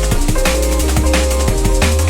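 Drum and bass music: a fast breakbeat over a deep, sustained sub-bass and held chord tones, with no vocals.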